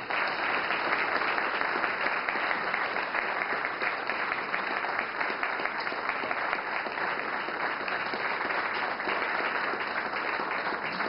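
Audience applauding, a steady round of clapping that goes on without a break.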